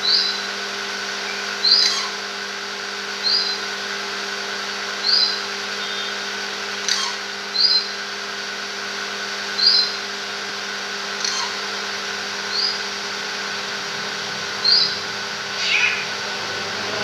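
Racket-tailed treepie (tangkar cetrong) giving a short, high call over and over, about once every one and a half to two seconds, with a few sharper notes among them. A steady hum runs underneath.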